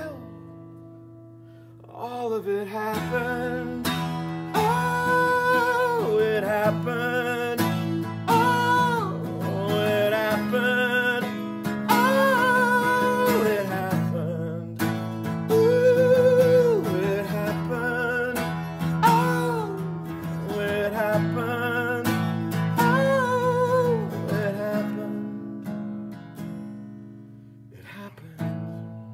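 Acoustic guitar strummed in a slow song, with a man singing long, wavering held notes over it. The voice comes in a few seconds in and stops a few seconds before the end, leaving the guitar alone.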